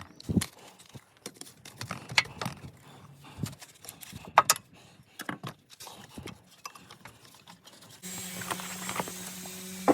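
Irregular clicks and metallic clinks of hand tools working on engine parts, the loudest about four and a half seconds in; about eight seconds in this gives way to a steady low hum.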